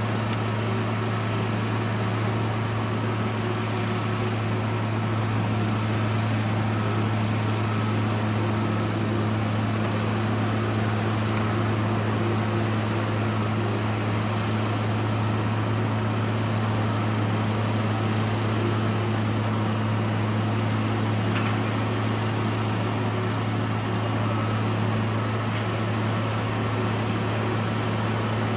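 A machine running steadily with a low, unchanging hum.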